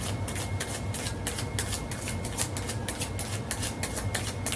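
Tarot cards being shuffled by hand: a quick, irregular run of soft clicks and flicks, several a second, over a low steady hum.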